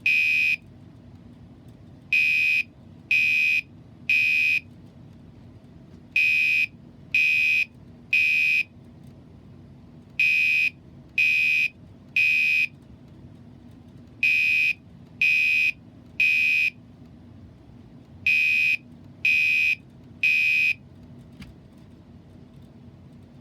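Fire alarm sounder beeping the temporal-three evacuation pattern: three short, high-pitched beeps, a pause, then three more, repeating about every four seconds. It stops about 21 seconds in, leaving a faint steady low hum.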